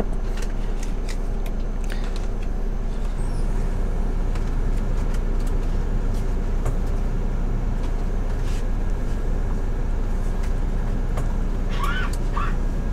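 Steady low drone of a coach bus heard from inside the passenger cabin, with a few faint clicks over it.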